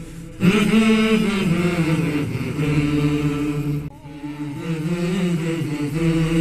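Vocal chanting in long, held notes, in phrases broken by short pauses about half a second in and near four seconds.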